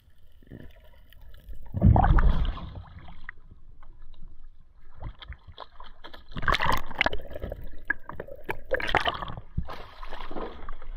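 Water gurgling and sloshing as a freediver surfaces and swims to the side of a small boat, with several irregular splashes. The loudest, deepest splash comes about two seconds in.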